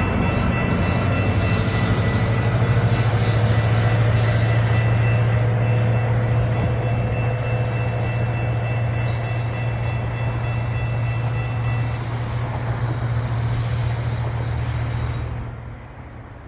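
GO Transit MP40PH-3C diesel locomotive passing close by at the tail of a slowing commuter train, its engine running with a strong steady low drone and a thin steady whine above it. The sound drops away quickly about a second before the end as the locomotive moves off.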